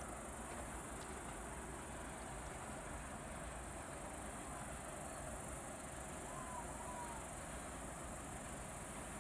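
Crickets chirping in a steady, continuous high trill.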